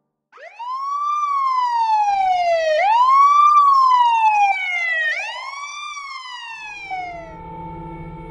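Emergency vehicle siren wailing: a quick rise then a slow fall in pitch, repeating about every two and a half seconds. It starts just after a moment of silence and fades out near the end as steady sustained tones come in.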